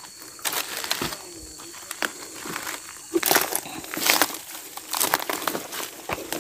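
Footsteps crunching and rustling through dry brush, dead leaves and twigs, in irregular crackles.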